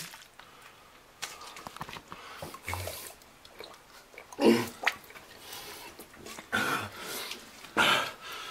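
Water being gulped straight from a plastic bottle: a few loud swallowing gulps with sloshing in the bottle, the loudest about halfway through and more near the end.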